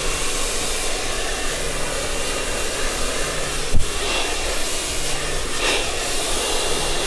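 Handheld hair dryer blowing steadily into hair held on a round brush, a faint high whine over the rush of air. A single sharp knock comes a little over halfway through.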